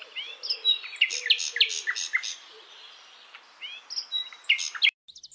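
Small songbirds chirping and twittering in rapid short high notes, in two busy spells, stopping suddenly near the end.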